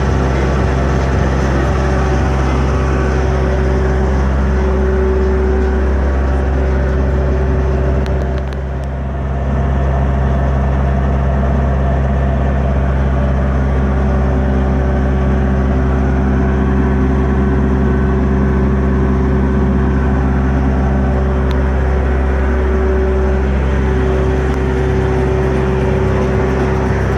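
Cummins ISX15 inline-six diesel engine running steadily, with a brief dip about nine seconds in; the engine has a failed turbocharger.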